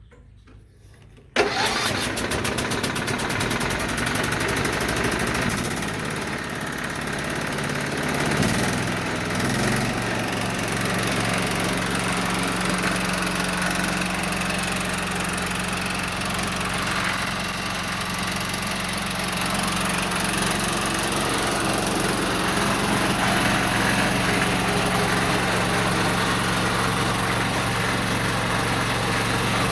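John Deere 208 garden tractor's single-cylinder Kohler engine is started. It catches suddenly about a second and a half in and then runs steadily. Its pitch shifts briefly around eight to ten seconds in, then holds.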